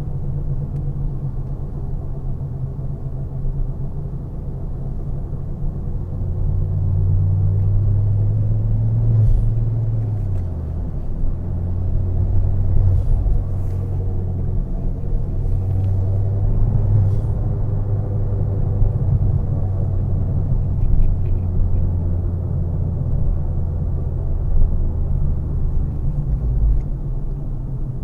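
Turbocharged car engine running under way, a low rumbling drone whose pitch rises and falls with the revs, with a clear shift in pitch about ten seconds in.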